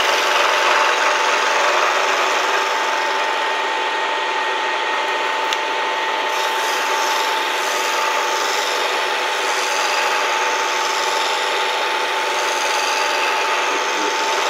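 Bridgeport milling machine under ProtoTrax CNC control cutting during its first program run: a steady rasping cutting noise with a constant high tone from the spindle and cutter.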